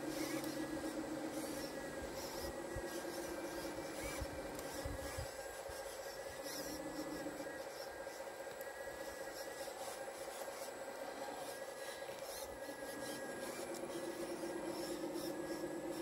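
Radio-controlled Volvo model excavator working its boom and bucket in the soil, its motors running in a steady hum that starts and stops in stretches as the arm moves.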